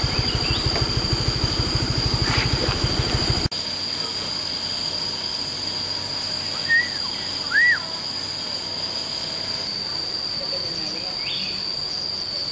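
Motorcycle engine idling with a fast even putter, then switched off suddenly about three and a half seconds in. A steady high-pitched insect drone runs on underneath, and there are two short bird chirps a few seconds after the engine stops.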